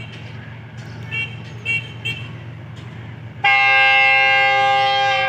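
Locomotive air horn sounding one long, steady multi-tone blast, starting loudly about three and a half seconds in, over a low rumble.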